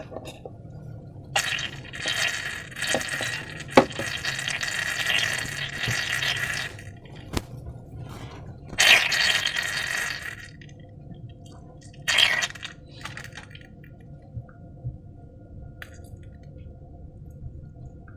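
Slime being worked by hand: three bursts of crackly, hissing noise, the first lasting about five seconds and the last short, with a couple of sharp clicks.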